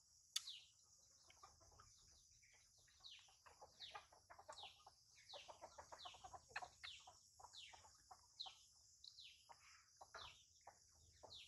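Birds chirping: a run of short, high, falling chirps, one or two a second, over a steady high hiss. A single sharp click comes just after the start.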